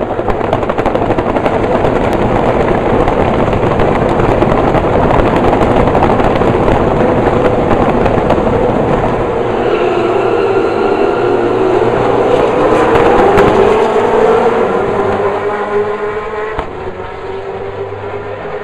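Recorded motor-racing sound effect: race car engines running loud with a dense crackle throughout. The engine pitch shifts about halfway through, and the sound dies down near the end.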